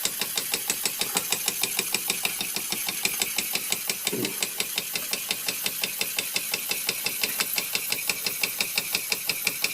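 1926 Bing 10/12/2 toy live-steam engine running steadily and driving a small toy grinder: a fast, even ticking beat of the running engine, several beats a second, with a hiss above it.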